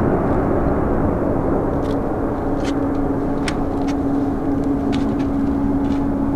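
Airbus A350 jet engines running steadily: a continuous rumble with a steady hum, and faint scattered clicks over it.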